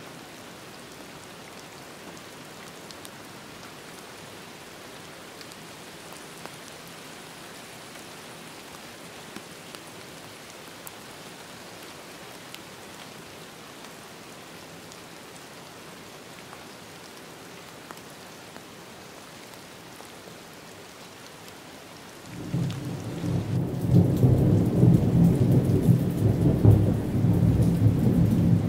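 Steady rain falling, with scattered sharp drop ticks. About 22 seconds in, a loud, rolling thunder rumble sets in suddenly and drowns out the rain.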